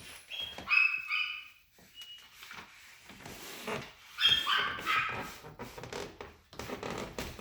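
A dog whining and yelping in high-pitched cries, in two short clusters about a second in and again around four to five seconds in.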